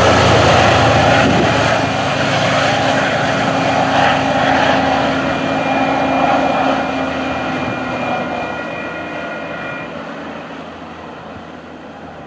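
A diesel locomotive on an MBTA commuter train pulling away: a steady engine drone with a high whine, fading as the train recedes. The whine drops out near the end.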